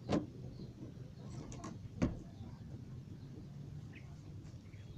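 Two sharp knocks about two seconds apart.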